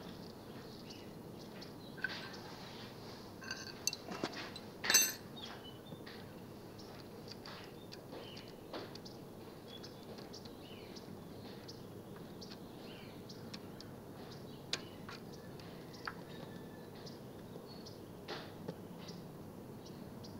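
Scattered small metallic clicks and clinks of hand tools and brake hardware as a bicycle rim-brake pad is being adjusted, a few louder knocks in the first five seconds and light ticks after that.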